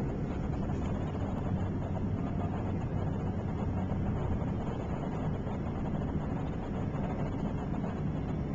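Steady cabin noise of a car cruising on a freeway: a low, even rumble of engine and tyres on the road, with some wind noise.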